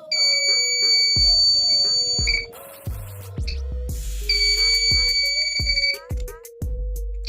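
Small battery-powered electronic buzzer sounding a steady high-pitched tone as its 9-volt circuit is completed, twice: once for about two and a half seconds from the start and again for about a second and a half in the middle. Background music with a beat plays underneath.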